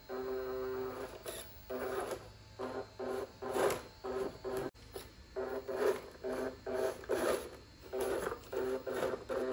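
Small electric drive motor and gearbox of a toy RC Range Rover Sport whirring at one steady pitch in repeated short bursts as the throttle is pulsed, with scraping noises from the tyres crawling over plastic blocks and sand in between.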